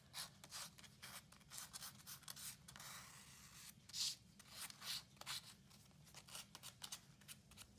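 Sandpaper rubbing over a 3D-printed claw coated in dried texture paste: faint, scratchy back-and-forth strokes, a few of them louder about halfway through.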